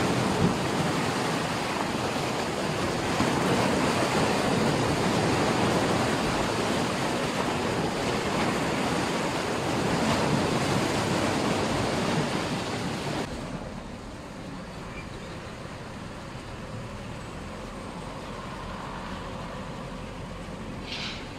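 Sea surf washing onto the shore, a steady rushing noise that drops abruptly about thirteen seconds in to a quieter, even hush.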